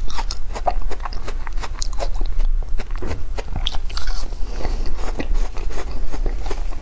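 Foam ice being bitten and chewed, a dense run of sharp, crackling crunches, with a fresh bite a few seconds in.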